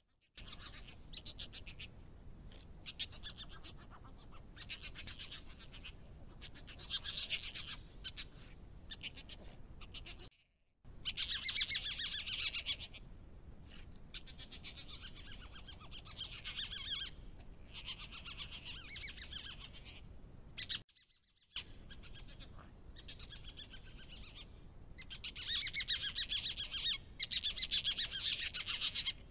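Otters calling while mating: bouts of rapid, high-pitched calls that come and go over and over and are loudest around a third of the way in and again near the end. The calling breaks off twice in brief silences.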